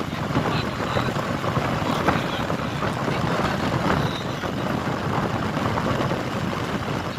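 Steady rumbling noise of a vehicle driving at speed over open sand, its engine and the rush of movement blended together.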